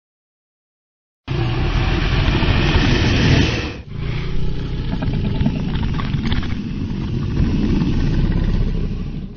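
A designed monster sound effect for the Gryphon creature: a loud, rough, rumbling sound that cuts in suddenly after a second of silence, with a brief break about four seconds in.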